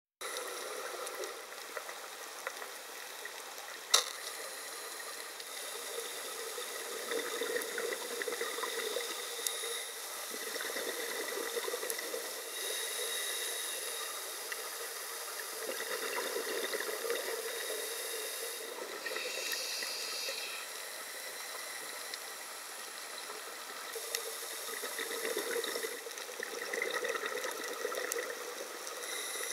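Underwater noise picked up by a compact camera inside its dive housing: a steady crackling hiss that swells every few seconds, with one sharp click about four seconds in.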